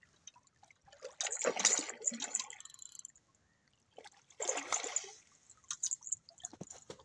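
A large hooked fish splashing and thrashing at the water's surface as it is played toward the landing net, in two bursts: one of about a second and a half starting about a second in, and a shorter one about four seconds in.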